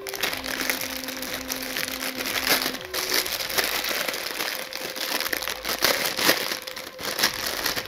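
Plastic packaging crinkling and rustling irregularly as hands unwrap it.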